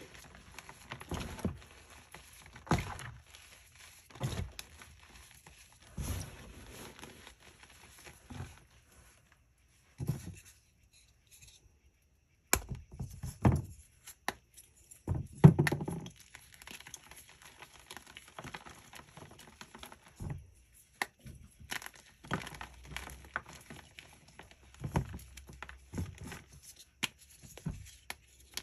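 Hands crushing dyed gym chalk: soft crunching and thuds as powdery crumbled chalk is squeezed, then a short pause. A solid red chalk block is then snapped with sharp cracks, the loudest about halfway through, followed by many small crackles as it crumbles apart.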